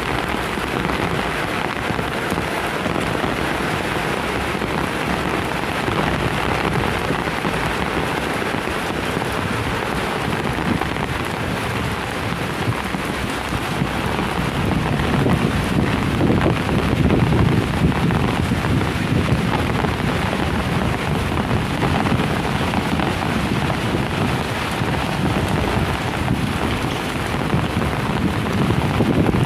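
Heavy rain pouring steadily in strong wind, with a deeper rumbling swell about halfway through.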